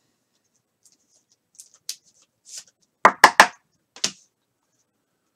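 Hands handling sports trading cards on a tabletop: a light rustle, then three quick sharp taps about three seconds in and one more a moment later.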